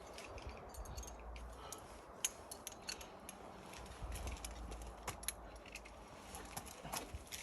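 Scattered light clicks and clinks, a sharper one about two seconds in and several more near the end, over a low rumble of wind on the microphone.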